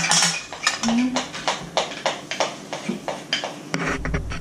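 A spoon clinking and tapping against a mixing bowl in quick, uneven strokes while cake batter is worked, with brief indistinct voice sounds. A low hum comes in near the end.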